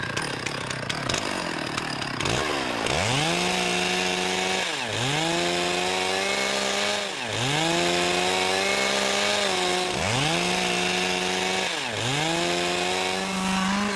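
Two-stroke chainsaw revved up to full throttle about five times, each held steady for around two seconds with a short drop in between, as it cuts into a felled conifer log.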